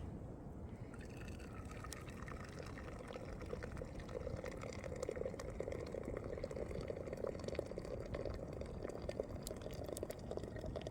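Water pouring, with a steady splashing that grows fuller about four seconds in.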